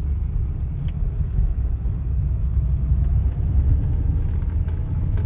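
Renault Sandero 1.0 16-valve car heard from inside the cabin while cornering: steady low engine and road rumble, with a light 'tuc, tuc' knocking from the front end as the steering is turned about half a turn. The owner has already checked the tripod joints and the outer CV joints and has not found the cause; it happens turning either way.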